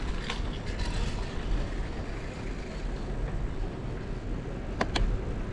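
Steady low rumble of a bicycle rolling over city streets, with two sharp clicks near the end.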